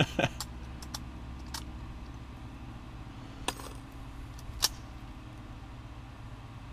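A few sharp metallic clicks and clacks from an SKS rifle being handled and reloaded from stripper clips, the loudest about four and a half seconds in, over a steady low hum.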